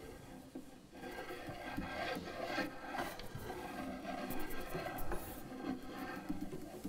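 Cello bow drawn across the instrument, giving a dry, uneven rubbing and scraping sound rather than clear pitched notes.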